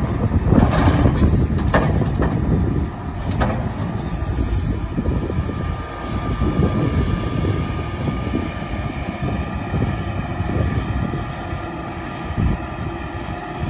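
Heavy machinery running with a dense low rumble. Several sharp knocks come in the first few seconds, and a steady high whine sets in about four seconds in.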